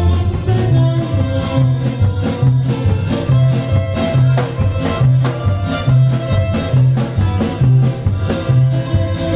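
Norteño band music played live and loud, an instrumental stretch without singing: a bass line alternating between two low notes on a steady beat, under drum hits and sustained melody notes.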